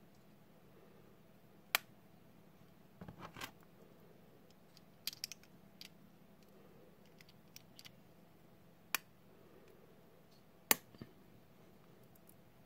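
Small sharp metallic clicks and clinks of a ladies' wristwatch's metal link bracelet being fitted into the case lugs and handled: single clicks about two, nine and eleven seconds in, a short rattle around three seconds, and lighter ticks between.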